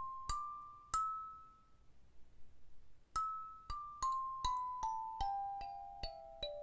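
Kimi kalimba's metal tines plucked one note at a time, each ringing and fading: two rising notes, a pause of about a second and a half, then a run of notes stepping steadily downward at about two and a half notes a second.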